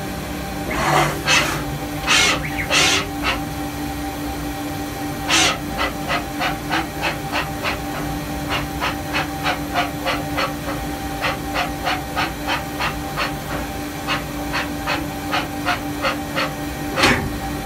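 Solder paste stencil printer running with a steady hum, over which come short hissing puffs of air: a few longer ones in the first three seconds, then a quick, even series of about three a second, with a louder puff near the end.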